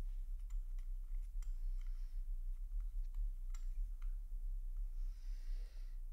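Small irregular clicks and light scrapes of a stainless steel watch case back being pressed and turned into place by hand, over a low steady hum.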